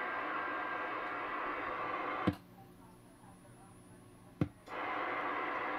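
CB radio receiver static: a steady hiss. About two seconds in, a click cuts the hiss off; after about two seconds of near quiet, a second click brings it back.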